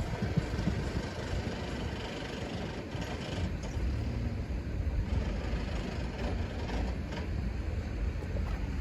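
Steady rumble of passing vehicles, with wind buffeting the microphone.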